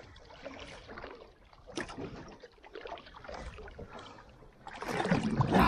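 Faint water splashing and lapping at the side of a boat around a hooked giant trevally held at the surface, with a few soft scattered splashes.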